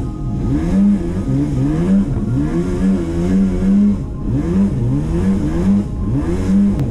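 Jet ski engine revving hard, its pitch sweeping up and down over and over, about once a second, with the hiss of water spray.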